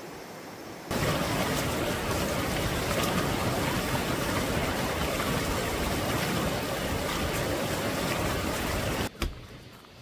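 Rushing valley stream: a loud, steady rush of flowing water that starts abruptly about a second in and cuts off suddenly near the end.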